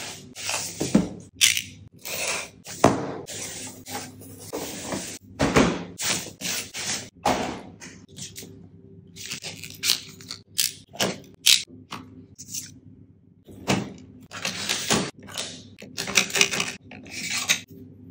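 Cardboard box and paper packaging being opened and handled: a run of irregular rustles, crinkles and scrapes with a few sharp knocks.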